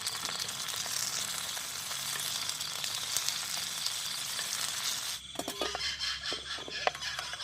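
Steady hiss of heavy rain that cuts off abruptly about five seconds in, leaving scattered clicks and a faint high insect chirring.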